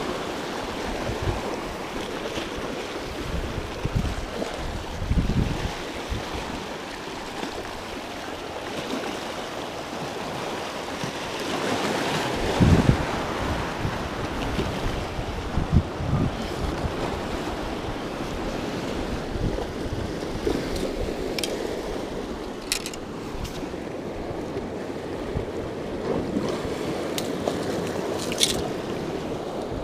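Sea surf washing over shoreline rocks, with wind buffeting the microphone in low thumps. A few sharp clicks sound near the end.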